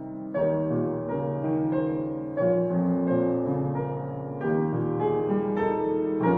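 Solo piano playing a slow, gentle piece, with sustained chords struck every second or two.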